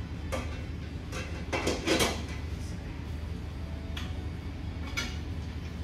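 Large stainless steel mixing bowl clanking and knocking as it is set onto the bowl cradle of a commercial stand mixer. The loudest knocks come in a quick cluster about two seconds in, with a few lighter clicks later.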